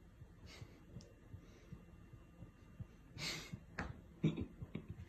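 Quiet room with faint breaths; a louder huffing exhale comes about three seconds in, followed by a few soft clicks.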